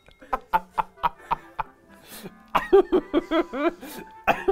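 Men laughing, first in short breathy pulses, about four a second, then in a held-back, wheezing chuckle ('ahuhuhöö') near the end.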